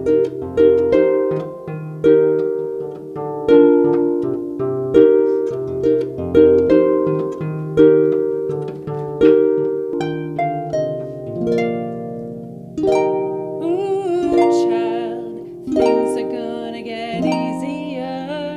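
Instrumental background music: plucked, harp-like string chords about every one and a half seconds, each ringing out and fading. Wavering higher notes join in over the last few seconds.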